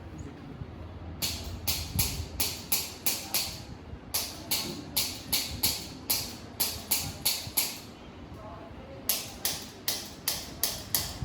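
A steady run of sharp slaps, about three a second, coming in three bursts with short pauses between them.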